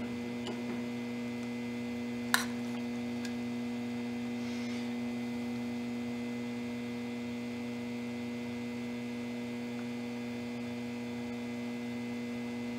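Steady electrical hum, one low tone with fainter higher tones over it, with a single sharp click about two and a half seconds in.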